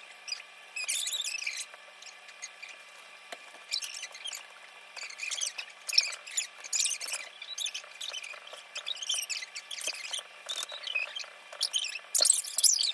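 Many short, irregular high-pitched squeaks and chirps, over a faint steady high hum.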